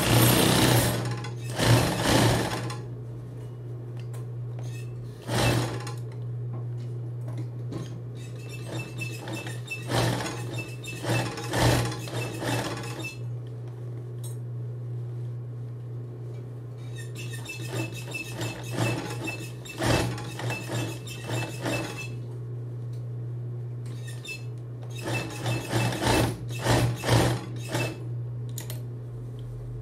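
Industrial flatbed sewing machine stitching through thick denim in several short runs of a few seconds each, with its motor humming steadily between the runs.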